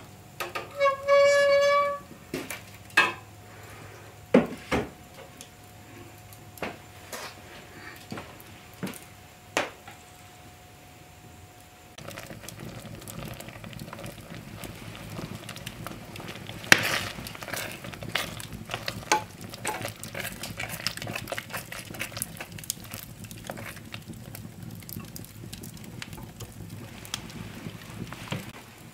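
Metal cooking pot knocking and clinking as it is set at a wood fire in an open hearth, with a brief high ringing tone near the start. For the latter half, the wood fire crackles steadily while the pot simmers over it.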